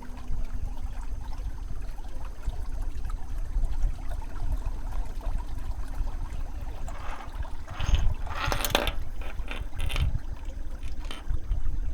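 Flowing stream water, a steady rushing with a louder, splashier stretch about eight seconds in. A last kalimba note rings out briefly at the very start.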